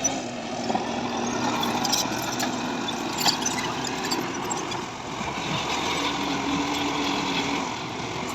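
Diesel engine of heavy earthmoving equipment running steadily, with a few short knocks, the loudest about three seconds in.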